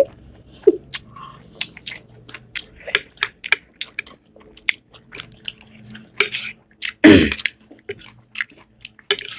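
Close-miked chewing and mouth noises of someone eating, a run of small wet clicks, with one louder, lower sound about seven seconds in.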